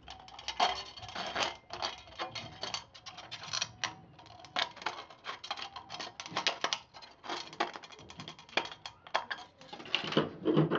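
Scissors snipping through a thin aluminium drink can, trimming its edge right on a marked line. Irregular crisp clicks, several a second and uneven in strength.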